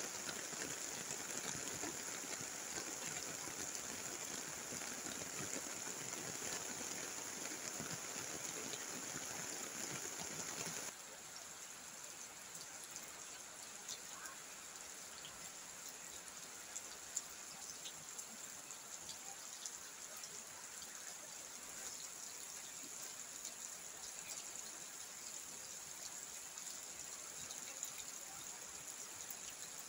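Steady rain falling on a wet road and vegetation: an even hiss with scattered drop ticks. It drops a little quieter about eleven seconds in.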